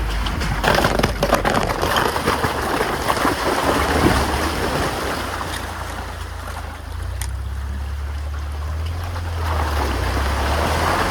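UAZ Hunter off-road vehicle driving, a steady low engine drone under a rough rushing noise with many short crackles in the first half, like tyres on a rough track.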